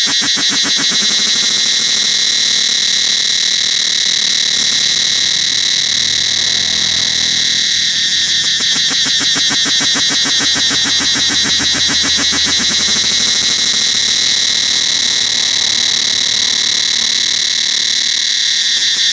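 Cicadas calling in a loud, steady chorus: a rapid, even pulsing buzz, high in pitch, that never lets up.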